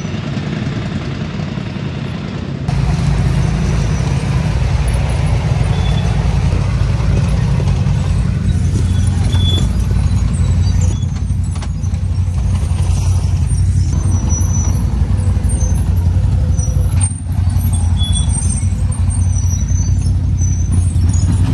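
ATV engine running as the machine is ridden, a steady low drone that gets louder about three seconds in and dips briefly twice later.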